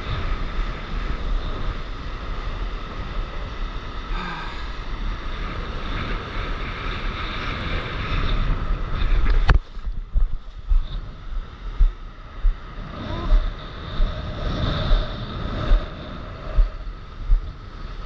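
Wind buffeting an action camera's microphone over the rush of surf and whitewater as a stand-up paddleboard rides a wave. About halfway through there is a sharp knock; after it the steady wind roar drops and water splashes and sloshes in uneven surges about once a second.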